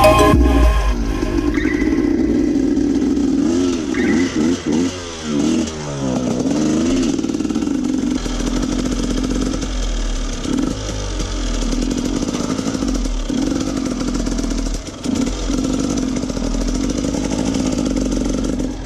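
Enduro motorcycle engine running as the bike is ridden, its pitch rising and falling with the throttle, with several brief dips where the revs drop.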